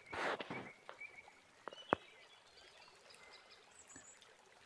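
Faint rustling and two sharp clicks from thin copper telephone wires being handled and twisted together by hand, the second click the loudest. Small birds chirp high and briefly in the first second.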